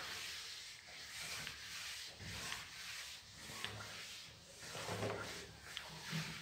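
Whiteboard eraser rubbing across a whiteboard in repeated wiping strokes.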